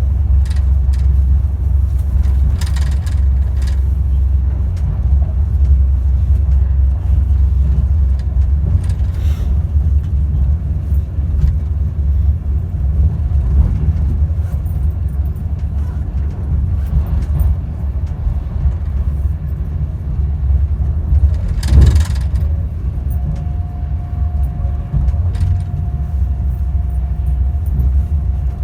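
Class 390 Pendolino electric train in motion, heard inside the passenger saloon above the traction motors: a steady low rumble from the running gear, with scattered light clicks and one louder sharp knock late on. Shortly after the knock, a thin steady high tone comes in and holds.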